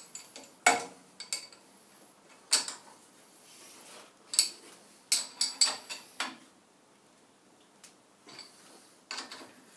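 Steel spanner clinking against the clamp nuts and steel fixture plate as the rear clamps are snugged down: irregular sharp metallic clinks and knocks, in clusters about a second in, around two and a half seconds in and between four and six seconds in, with a few more near the end.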